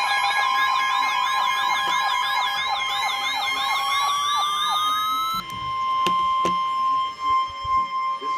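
Emergency Alert System alert tones signalling an incoming warning: a steady electronic tone overlaid by a fast, siren-like warble of about three sweeps a second. About five seconds in the warble stops, leaving the steady tone alone, with two sharp clicks.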